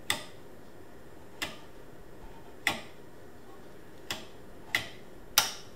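Six sharp clicks at uneven intervals, roughly one to one and a half seconds apart, from a General Radio Strobotac Type 1531 tube stroboscope as its large flash-rate dial is turned by hand.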